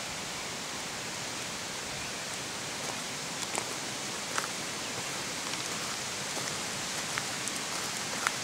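Steady rushing of a small woodland stream, an even hiss of flowing water with no gusts, and a few light clicks of footsteps on the leaf-littered path.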